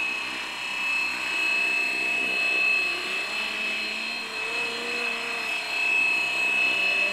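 FlyWing FW450 V3 electric RC helicopter in flight: its motor and drive give a steady, high-pitched whine over the rush of the spinning rotor blades.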